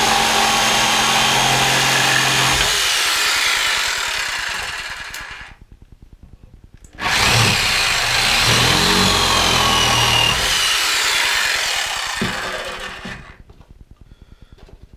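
DeWalt DW317 corded jigsaw with a 5.5-amp motor, sawing through inch-thick maple twice: once with the orbital action at zero and once with it set to 4. The saw runs for about five seconds, then spins down with a falling whine. After a pause of about two seconds it starts again and cuts for about six seconds before spinning down once more.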